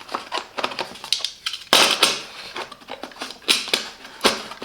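Hand tools and their plastic holders being handled in a plastic tool case: a run of irregular, sharp clicks and clacks, loudest and busiest about two seconds in.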